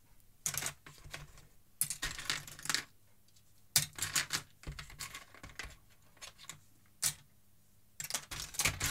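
Small plastic Lego bricks and toy figures clattering and clicking against each other and the plastic tub as a hand rummages through them, in several irregular spells of rattling with short pauses between.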